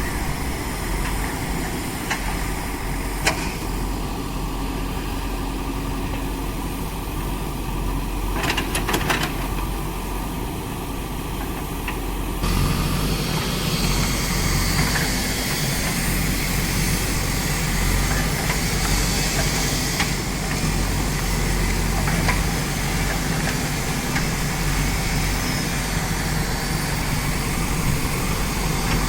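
Diesel engine of a backhoe loader running steadily, with a few brief knocks early on. About twelve seconds in it abruptly becomes louder and fuller.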